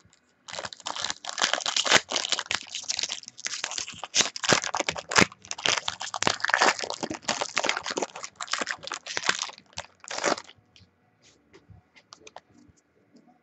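A trading-card pack wrapper being torn open and crinkled, giving a dense crackling for about ten seconds that stops abruptly, followed by a few faint clicks.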